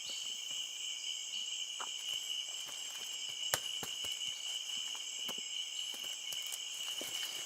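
Steady chorus of forest insects, a shrill high drone, with scattered light clicks and rustles and one sharper click about three and a half seconds in.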